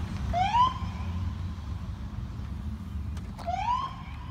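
Police car siren giving two short rising whoops about three seconds apart, over the low rumble of vehicle engines.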